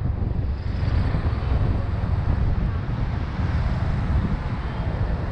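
Wind buffeting the microphone of a moving motorbike, a steady low rumble mixed with the bike's road noise.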